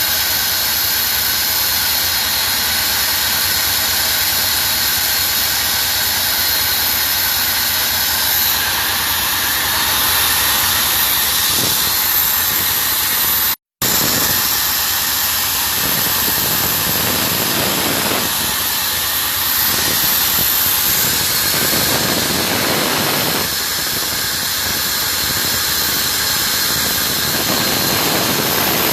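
Oxygen production plant machinery running: a loud, steady machine noise with a strong hiss. The sound drops out for an instant about halfway through.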